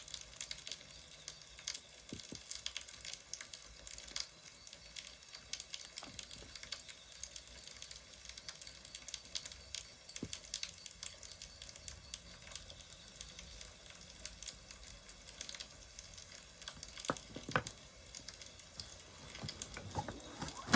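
Wood fire crackling: a steady run of small pops and snaps, with a few louder snaps near the end.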